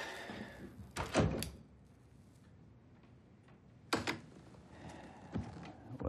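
A few sharp knocks and clicks in a quiet room. The loudest pair comes about a second in, with another sharp knock near four seconds in and a softer one later.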